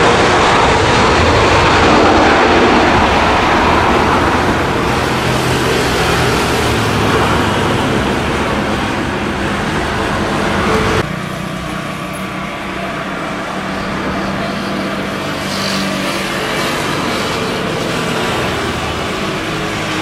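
Airbus A320's CFM56 jet engines running loud as the airliner rolls out on the runway after touchdown, the sound easing as it slows and moves away. About 11 seconds in the sound cuts abruptly to the quieter, steady hum of a Boeing 737-800's jet engines on final approach.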